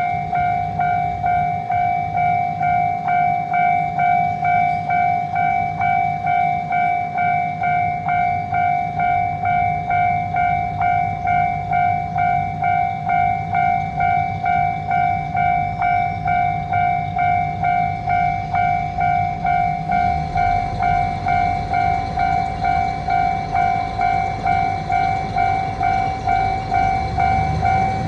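Japanese railroad crossing alarm ringing its steady "kan-kan" at about two strikes a second, each strike dying away before the next. From about twenty seconds in, a train's rumble builds under it.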